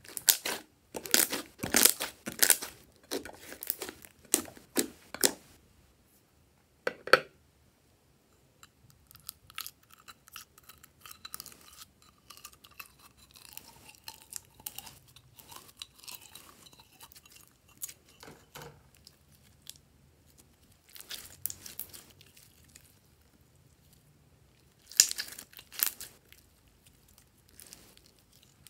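Hands squeezing slime: bursts of wet crackling and popping as a large slime bubble is pressed down, loudest in the first five seconds. Later come softer squelching crackles as jelly slime is scooped out and stretched, with more bursts near the end.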